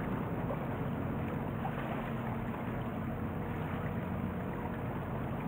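Steady low rumble of a ship's engine carrying across calm harbour water, with no breaks or sudden sounds.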